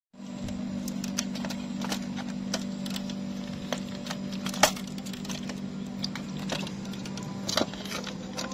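Metal wire cage rattling and clicking irregularly as a hand grips and moves it, over a steady low hum.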